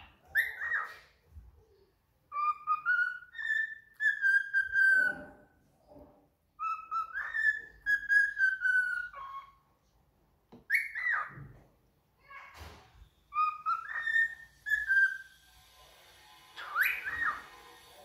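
Cockatiel whistling a tune: several phrases of stepping, sliding whistles a few seconds apart, with a few short sharp whistled calls in between.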